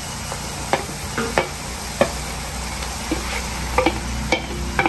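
Onions, cashews and green chillies frying in oil in a kadai with a steady sizzle, while grated boiled plantain is scraped off a steel plate into the pan with a wooden spatula, giving a handful of sharp clicks and knocks.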